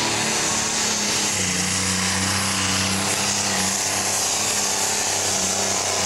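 Pro stock pulling tractor's turbocharged diesel engine running flat out under full load as it drags the pulling sled down the track, a steady low drone that holds its pitch.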